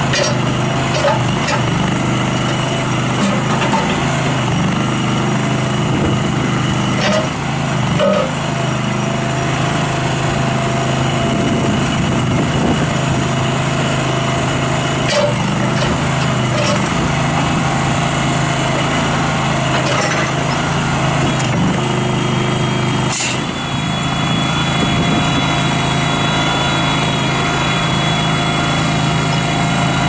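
Kohler Command 20 hp twin-cylinder gas engine of a Terramite T5C backhoe running steadily while the backhoe boom and bucket are worked, with a few brief clunks.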